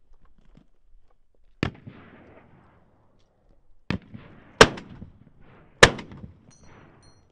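Four single rifle shots fired one to two seconds apart, each followed by a rolling echo; the last two are the loudest.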